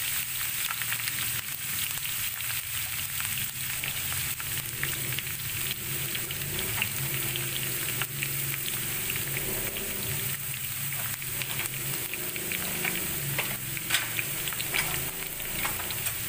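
Sliced onions frying in hot cooking oil in a pan for a tarka: a steady sizzle with constant small pops and crackles as the onions turn brown.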